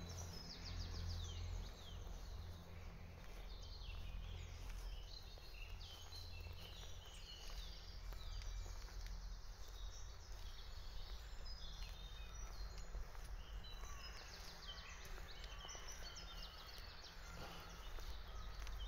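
Several wild birds singing, many short high notes that fall in pitch, overlapping throughout. Under them runs a low steady rumble.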